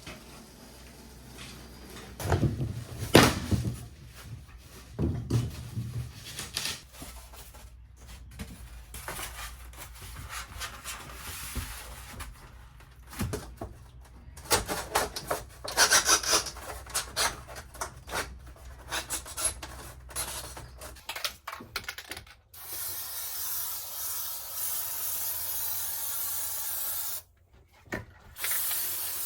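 Rubbing, scraping and knocking of material being handled and fitted against the wall for the first twenty seconds or so. Then a steady aerosol spray hiss for about five seconds, a brief stop, and the spray starting again near the end, as from a can of spray adhesive.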